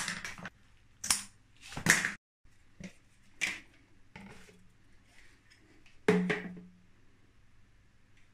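Hard PVC sewer-pipe fittings being handled and knocked together: a series of sharp knocks and clatters, the loudest about six seconds in with a short hollow ring, as a 90° elbow is pushed onto the side outlet of a pipe tee.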